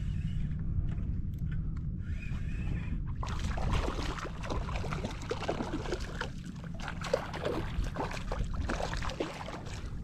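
A low steady rumble, then from about three seconds in, repeated irregular splashing as a hooked fish thrashes at the surface beside the kayak.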